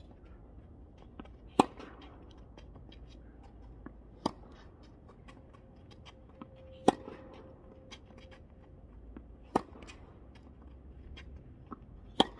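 Tennis rally: a racket strikes the ball with a sharp pop five times, about every two and a half seconds, with fainter clicks in between.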